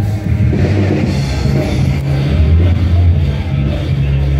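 Rock band playing live, with drum kit, electric guitar and a strong bass line.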